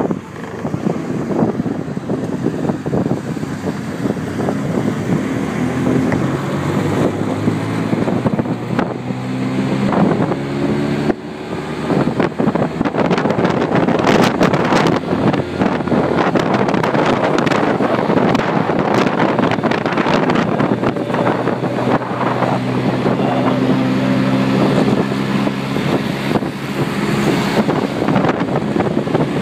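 Cocotaxi's small motor scooter engine running under way in traffic, with wind buffeting the microphone. The engine's pitched note comes through clearly twice, about a third of the way in and again near the end.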